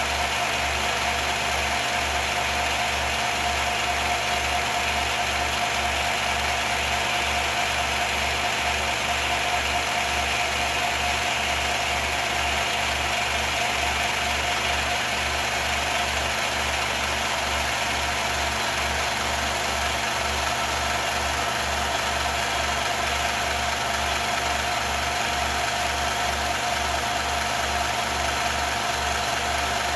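Film projector running: a steady mechanical hum with an evenly pulsing low throb.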